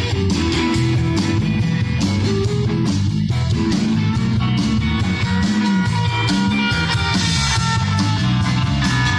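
Live rock band playing an instrumental passage: electric guitar lead over bass and drum kit.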